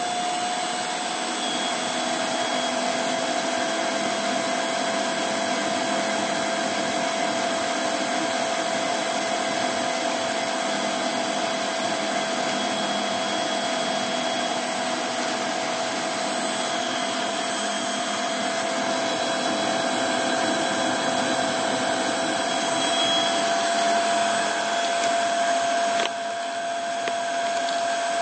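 Davey DynaDrive variable-speed booster pump running under load: a steady motor hum with a thin high whine. Its pitch creeps up slightly at the start as the pump speeds up to hold about 65 PSI, with a second shower just opened.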